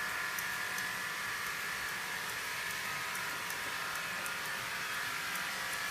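A steady whirring electric motor drone with a few steady tones in it, and over it faint, irregular clicks of grooming scissors snipping through a dog's leg coat.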